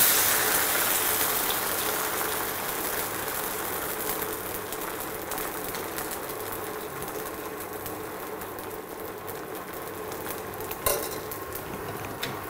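Varai dosa batter sizzling in hot oil on a pan, loudest as the batter is poured at the start and dying down gradually as it sets. A short tap sounds near the end.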